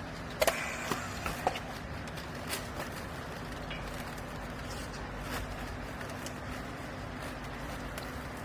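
Vertical clothing baler running with a steady hum, with a cluster of sharp knocks and clanks about half a second to a second and a half in and a few scattered clicks later.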